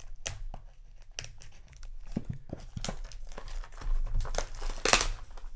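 Thin plastic shrink-wrap being torn and peeled off a cardboard booster display box. It crinkles and crackles in irregular bursts, loudest a little before the end.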